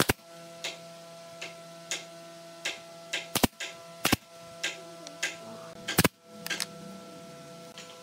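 Pneumatic nail gun firing brads into a wooden door frame's molding: a string of sharp shots at irregular intervals, four of them louder than the rest.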